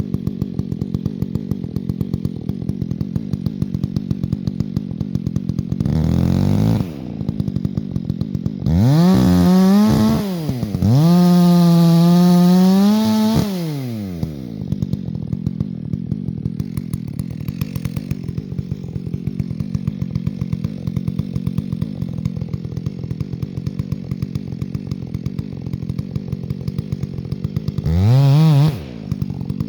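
Two-stroke chainsaw idling with a fast, even ticking. It is revved up four times and drops back to idle after each, the longest rev held for about two and a half seconds.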